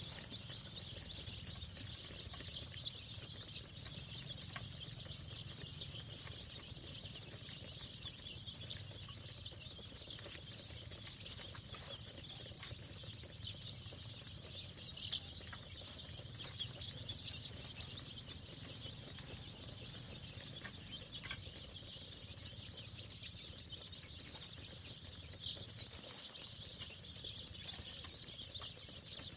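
A large brood of young village chicken chicks peeping all together, a dense chorus of high, short peeps.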